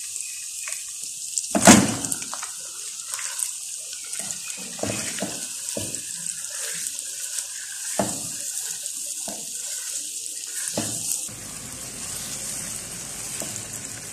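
Raw chicken pieces dropped into hot ghee and butter in a nonstick wok, landing with one loud thud about two seconds in, then sizzling steadily while a spatula knocks and scrapes as the chicken is stirred.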